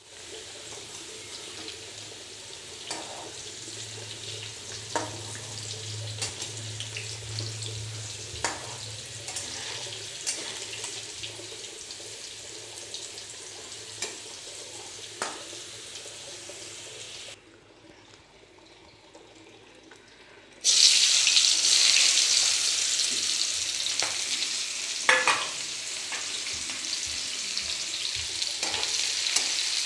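Potato chunks frying in hot oil in a pan, with a spatula scraping and tapping against it. After a quieter stretch about two-thirds of the way in, a much louder sizzle starts suddenly as chopped onions fry in the oil.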